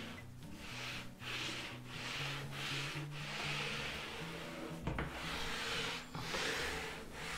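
A damp sponge rubbed back and forth over a painted wooden furniture top, smoothing and wiping back wet patina. The rubbing strokes are steady and rhythmic, about one and a half a second, with a single short knock a little over halfway through.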